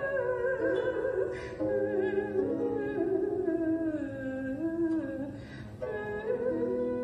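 Background music: a slow melody of held notes that step and slide in pitch.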